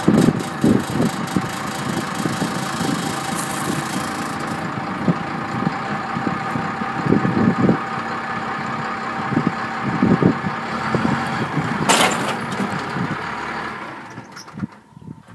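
Pickup truck engine running in reverse gear, with wind buffeting the microphone. A short, loud burst of noise about twelve seconds in, and the engine sound falls away near the end.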